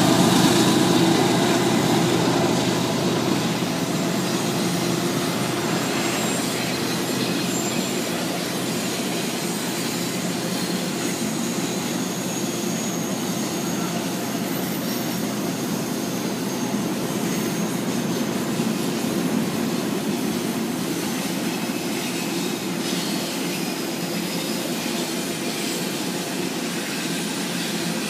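Canadian Pacific freight train rolling past on a curve. The lead diesel locomotive's engine fades over the first few seconds, giving way to a steady run of double-stack container cars with high-pitched wheel squeal.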